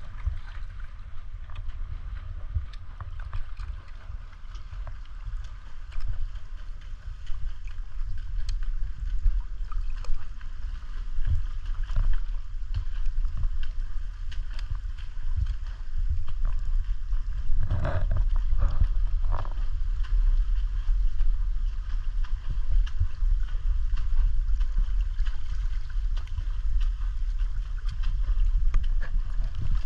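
Water sloshing and rumbling around a camera held by a snorkeler, muffled as if underwater, with many scattered faint clicks. A brief louder gurgle comes about 18 seconds in.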